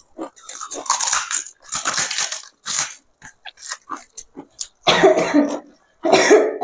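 A person coughing in short fits, the strongest two coming about five and six seconds in, with small mouth-and-hand eating sounds between them.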